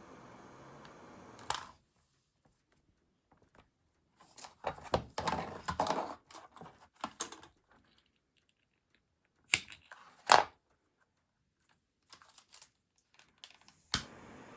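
Scattered light clicks and taps of small hand tools at a leather workbench while stitching is finished off: a busier run of clicking about halfway through and a few sharp single clicks, with dead silence between.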